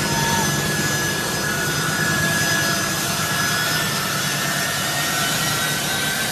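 Jet engines of a large aircraft running, a steady loud rushing noise with a high whine.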